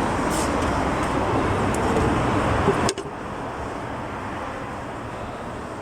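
Steady background noise of traffic and workshop rumble and hiss. About three seconds in, a sharp click is followed by a quieter hiss.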